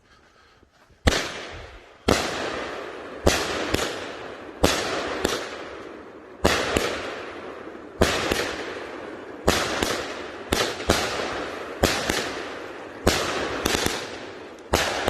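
Winda 'Gold Rush' 200-gram consumer firework cake firing shot after shot: starting about a second in, sharp bangs come every half second to a second, each trailing off in a fading sizzle from the gold strobe effects.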